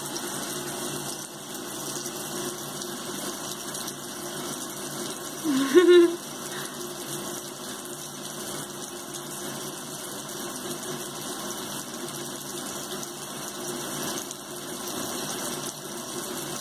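Thin stream of water from a bathroom faucet running steadily into the sink, with one short voiced sound about six seconds in.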